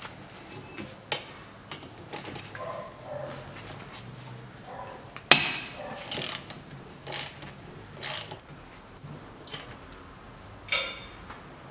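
Socket wrench with a 7 mm socket undoing the rear brake drum's bolts on a VAZ 2110: irregular ratchet clicks and metal clinks, with a sharp clank about five seconds in and two short high squeaks about three quarters of the way through.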